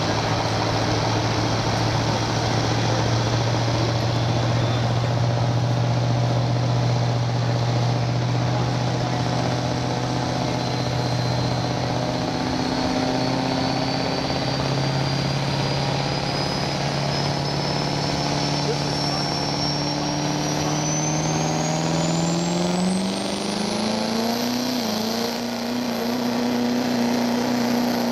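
Pro street diesel pickup's engine running hard under load as it pulls a weight-transfer sled, the engine tone steady at first and then climbing in pitch about three quarters of the way through. A thin high whine rises slowly over the second half and then quickly near the end.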